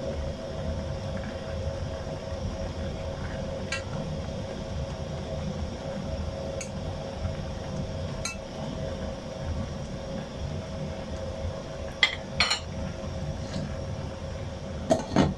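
Metal ladle stirring vegetables in a boiling stainless-steel pot, with light clinks against the pot, two sharper clanks a little after midway, and a louder clank near the end as a glass lid goes onto the pot. A steady hum and the bubbling of the boil run underneath.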